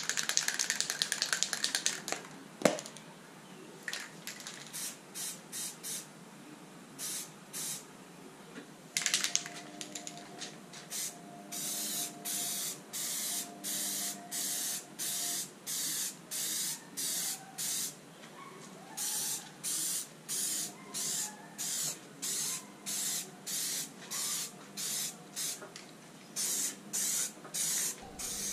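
Aerosol spray-paint can hissing in short bursts with brief pauses between them: a few at first, then about one a second.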